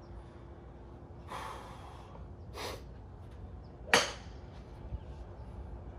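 A golf club strikes a ball off a range mat with a single sharp crack about four seconds in. Two softer hissing noises come a little before it.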